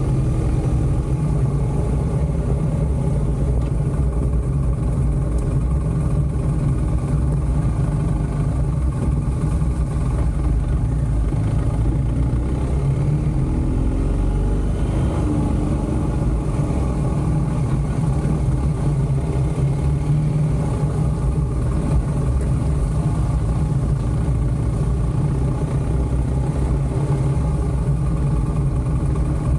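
BMW motorcycle engine running steadily while riding, its pitch gliding up and down briefly about halfway through.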